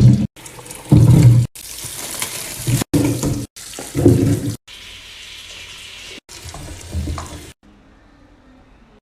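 Water running from a kitchen tap into a sink, heard in several short clips cut one after another. Loud bumps and handling knocks fall between them, about at the start, a second in and four seconds in.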